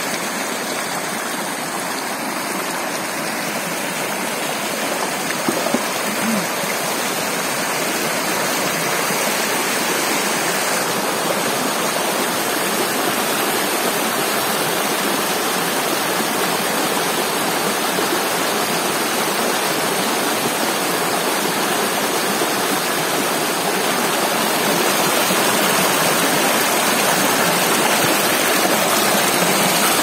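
Shallow rocky stream rushing and splashing over stones close by: a steady rush of water, a little louder near the end.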